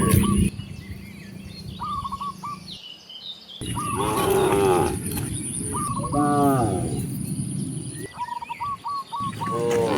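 Cattle mooing: two long, deep calls in the middle and another starting near the end, with short repeated bird chirps between them.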